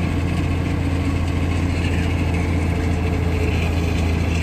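Mercedes-Benz truck's diesel engine running at a steady low hum, heard from inside the cab.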